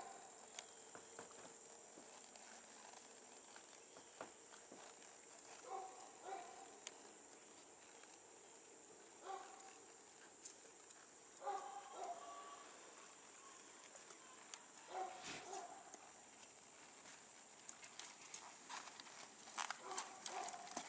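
Quiet, faint hoofbeats of a ridden horse moving on sand, growing denser and louder near the end, with a steady faint high tone behind them.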